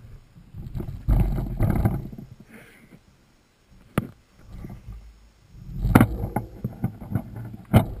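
Rattling, knocks and scraping from a mountain bike being pushed and lifted over rocks, picked up by a camera mounted on the bike itself. One sharp knock about four seconds in, and a quick run of knocks and clatters near the end.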